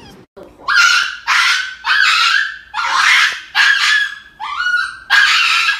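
Small dog screaming as it is injected: seven loud, high yelping cries in quick succession, each about half a second long, one of them rising in pitch.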